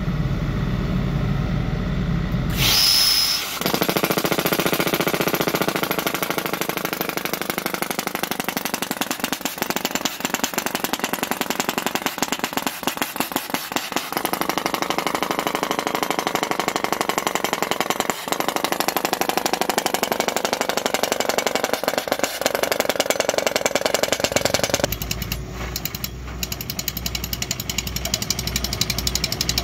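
Excavator-mounted percussion drill hammering rapidly and steadily into hard ground, boring the hole for a ground-screw foundation. It starts hammering about three seconds in, after a moment of machine running and a sharp burst of air.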